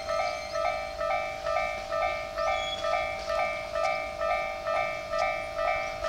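Japanese railway level-crossing warning bell ringing, an electronic two-tone ding alternating evenly at about two strokes a second.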